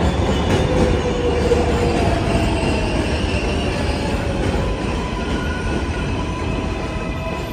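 A 7 train of R188 subway cars running along an elevated steel track past the platform: a steady rumble of wheels on rails with thin, drawn-out wheel squeals over it, easing slightly toward the end.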